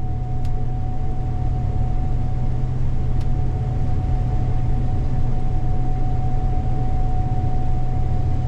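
Gleaner combine running while harvesting soybeans, heard from inside the cab: a steady low drone with a steady whine above it and two faint clicks.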